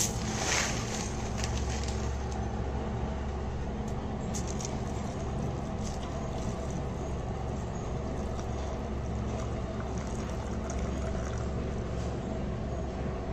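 Cornflakes pattering into a ceramic bowl in the first second or so, then milk poured over them. Throughout there is a steady low rumble with a hum.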